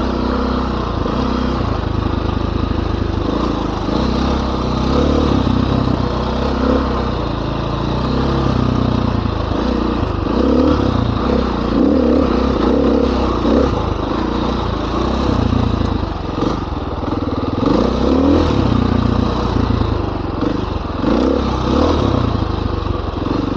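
Dirt bike engine running at trail speed, its revs rising and falling again and again with the throttle.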